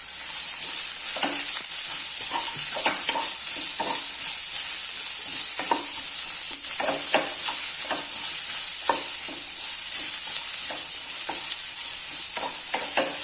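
Onions frying and sizzling in hot oil in a pan, stirred with a spatula that scrapes and knocks against the pan now and then. A steady high hiss with irregular short knocks over it, a little louder from the start.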